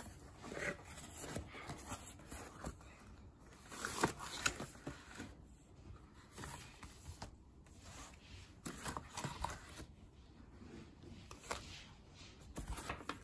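Faint rustling, scraping and light taps of cardboard packaging and paper envelopes being handled and set down on a plastic-covered table.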